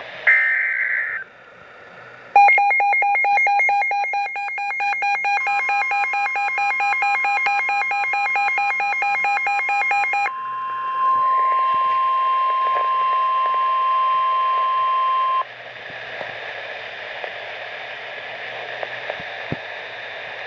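Weather radio emergency alert tones: the tail of a screeching digital header burst, then rapid electronic beeping, overlapped by the steady NOAA Weather Radio warning alarm tone, which holds for about ten seconds and then cuts off, leaving radio hiss.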